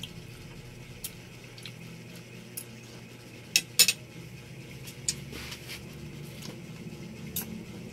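A metal spoon clinking against a dish a few times, with the loudest pair of clinks about three and a half seconds in, over a faint steady hum.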